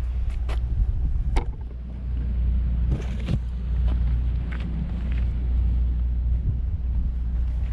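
Steady low rumble, with a few short sharp clicks and taps scattered through it.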